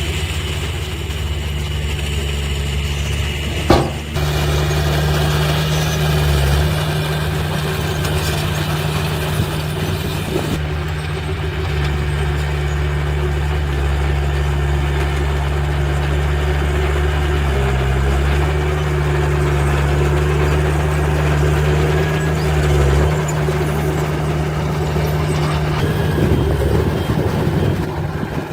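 Heavy diesel engine of earthmoving machinery running steadily, its note shifting briefly a few times, with one sharp clank about four seconds in.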